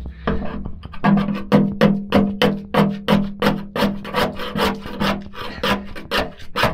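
Hand chisel scraping old truck-bedliner coating off the steel plate of a boat's chain locker in quick repeated strokes, about four a second, starting about a second in.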